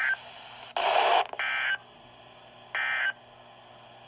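Emergency Alert System end-of-message data bursts: short digital two-tone data squeals, three in all, about 1.4 s apart, the first cut off at the very start. A louder burst of static hiss falls between the first and second. The bursts close out a National Weather Service severe thunderstorm warning on weather radio.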